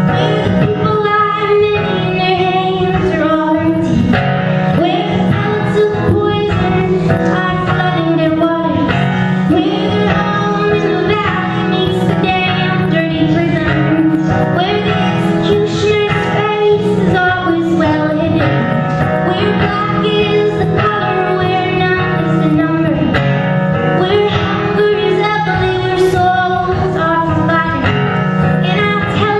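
A woman singing a folk song over acoustic guitar in a live performance, the voice continuous and steady in level.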